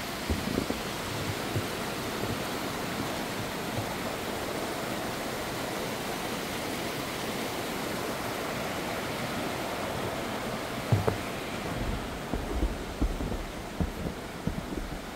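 Steady rushing of running water from a stream in a rocky ravine. A few short low bumps come in over it near the end.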